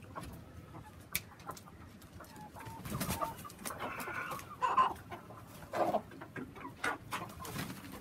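A flock of native country chickens clucking in a pen, with short scattered calls and a few louder ones in the middle.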